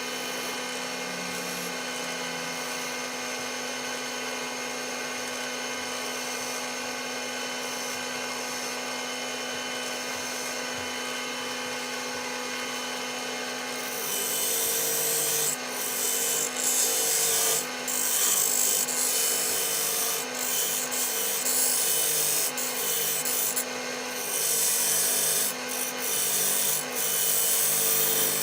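Wood lathe running steadily with a walnut blank spinning. About halfway through, a louder rasping rub sets in as the spinning wood is worked by hand in uneven strokes.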